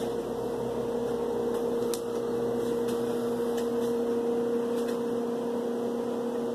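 Steady machine hum with two held tones, at an even level, with a few faint ticks.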